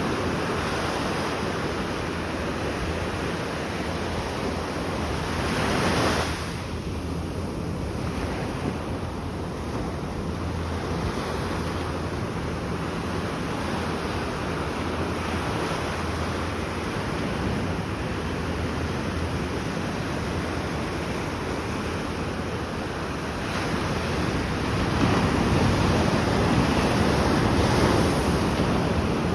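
Atlantic Ocean waves washing in, with wind on the microphone. The surf swells about six seconds in and again near the end.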